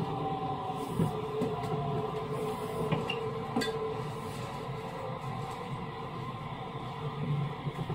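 Osaka Metro 66 series commuter train heard from inside the car while running: a steady rumble of wheels on rail with several held tones from the traction equipment, and a few sharp clicks from the track.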